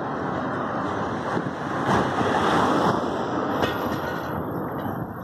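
A car driving down the street and passing close by: tyre and engine noise that swells to its loudest two to three seconds in, then fades.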